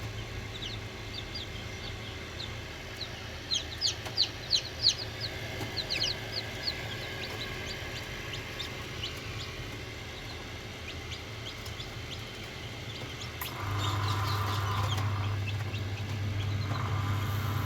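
A flock of chickens clucking and calling in many short, high calls, busiest a few seconds in, over a steady low hum. About thirteen seconds in, a louder steady machine hum starts.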